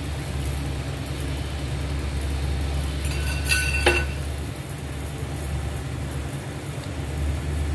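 Chicken soup boiling in an iron wok on a gas stove, a steady low rumble; about three and a half seconds in, a single ringing metal clink as the steel bowl that held the beaten egg is set down.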